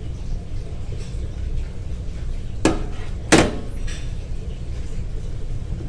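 Two sharp metallic clanks about half a second apart, the second louder, as an emptied tuna can is handled and set down on a stainless steel counter. A steady low hum lies underneath.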